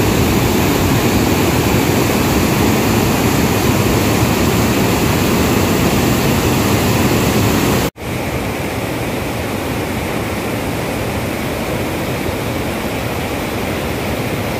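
Whitewater rapids rushing over boulders in a swollen mountain river, a steady loud rush of water. It drops out for an instant about eight seconds in and carries on a little quieter.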